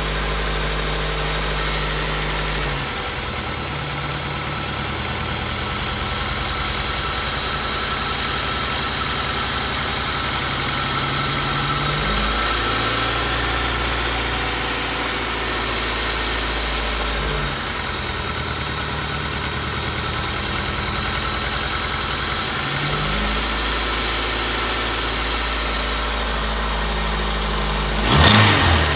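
Car engine idling steadily, still making the noise it made before a rod knock repair; the owner wonders whether it comes from a bad oil pump, piston slap or bad valves. The low hum shifts in pitch a few times, and a louder jolt comes near the end.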